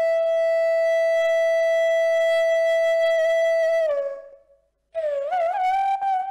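A wind instrument holds one long, steady note. The note dips and fades out about four seconds in; after a brief gap a new, slightly higher note starts with a wavering bend and then holds steady.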